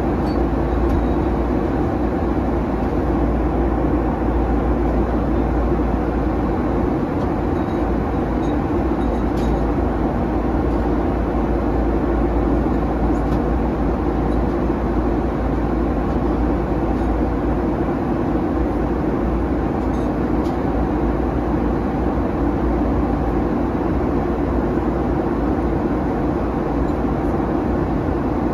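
Steady cabin noise inside a Boeing 737-900 in flight: the drone of its CFM56-7B engines mixed with the rush of air along the fuselage, even and unchanging, heaviest in the low range.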